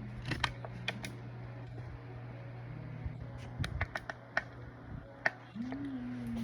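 Small sharp clicks and taps from handling craft tools and materials at a desk, some in quick clusters, over a steady low hum.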